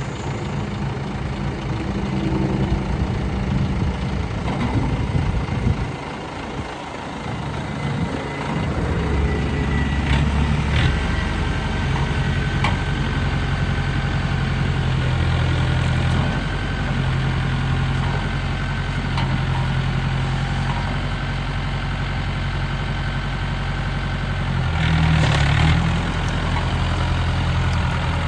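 John Deere 1070 compact tractor's three-cylinder diesel engine running, its speed dropping about six seconds in, then rising and stepping up and down as the throttle changes and the tractor drives off. Briefly louder near the end.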